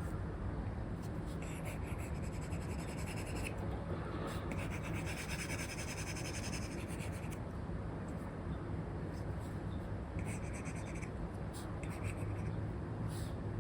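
Apple Pencil 2 with an Elecom nib drawing across a paper-like screen film on an iPad: several scratchy strokes, the longest in the middle, with short taps between them, over a steady low background noise.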